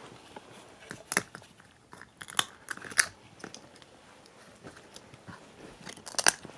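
Cavalier King Charles Spaniel chewing and crunching frozen food out of a soft slow-feeder toy. A few sharp, irregular crunches come through, the loudest about three seconds in and again just after six seconds.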